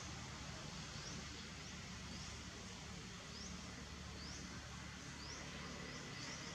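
Faint forest ambience: a steady hiss and low rumble, with short, high, upward-sweeping chirps about once a second that come closer together near the end.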